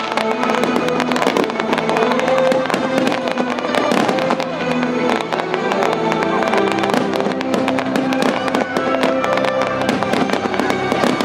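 Fireworks going off in quick succession, many sharp cracks and crackles, with music playing underneath.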